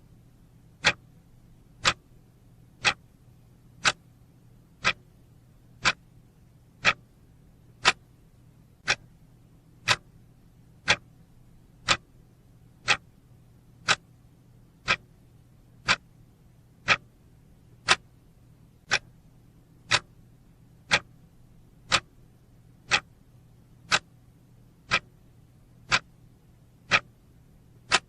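Clock-tick sound effect marking a countdown timer's seconds: one sharp tick every second, evenly spaced.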